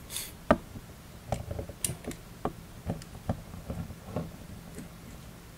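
Small screwdriver loosening the line roller screw on a Bullzen Berserk Immortal 3500 spinning reel: light metal clicks and taps, about a dozen at uneven intervals.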